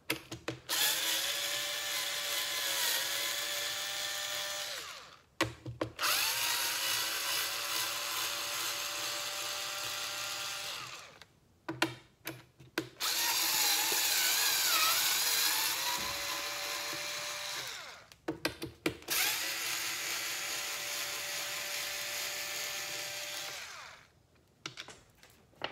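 Small cordless electric driver running four times, each run four to five seconds of steady motor whine that dips briefly in pitch now and then, backing out the four bottom bolts of a Onewheel XR's front bumper. Short clicks fall in the pauses between runs.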